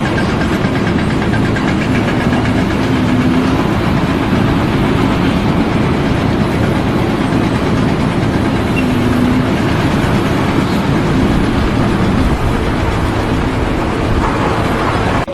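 An engine running loudly and steadily, its pitch dipping briefly twice.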